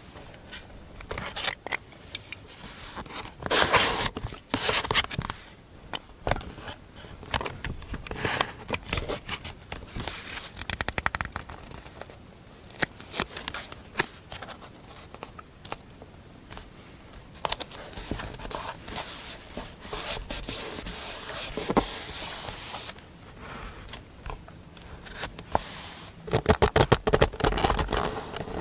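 Close-up paper-crafting sounds on a desk: scratching, scraping and snipping against paper, in irregular strokes with a few louder rustling stretches and a quick run of snips near the end.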